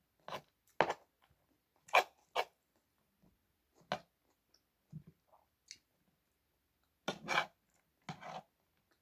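Close-up eating sounds: a series of short crunches and scrapes at irregular intervals, with several quick ones close together near the end.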